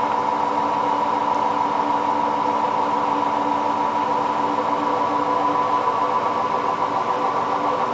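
Hotpoint WT960 washing machine on its spin cycle, the motor and drum holding a steady whine with a hum beneath, spinning a light load of towels.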